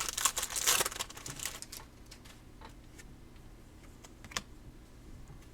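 Wrapper of a baseball trading-card pack crinkling and tearing as it is opened, for about the first two seconds, then a few scattered clicks as the cards are handled.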